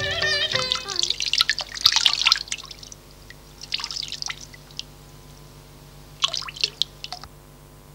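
Tap water splashing and dripping into a stainless steel sink as cups and a saucer are rinsed, in three short spells: about a second in, around four seconds in, and again near the end.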